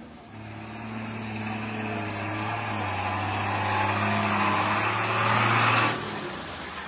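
Motor vehicle running, its engine hum steady while engine and road noise build louder for about six seconds and then drop off suddenly.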